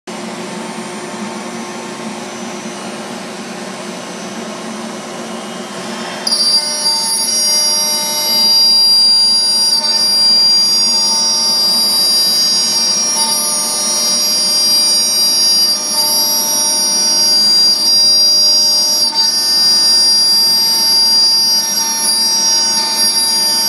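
CNC router spindle running steadily on a ShopBot PRS Alpha. About six seconds in, the bit starts cutting the 3/4-inch MDF and the sound turns suddenly louder, with a steady high whine that holds as it mills the frame.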